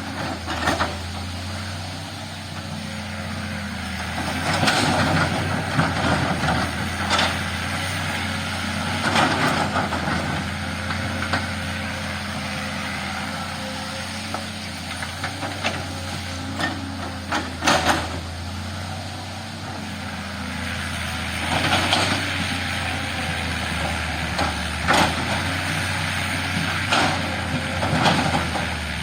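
Diesel engine of a heavy earthmoving machine running steadily, with repeated loud scraping and clanking bursts every few seconds as it works the ground.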